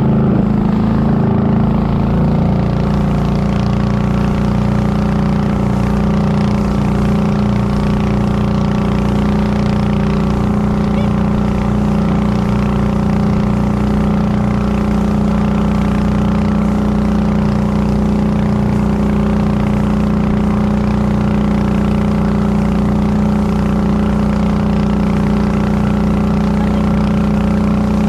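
Motorboat engine running steadily aboard a moving boat: a loud, even drone that holds the same pitch throughout.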